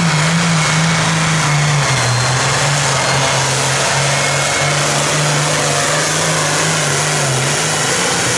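Classic super stock pulling tractor's engine running hard under load as it drags the weight sled, a loud steady drone whose pitch steps down slightly about two seconds in.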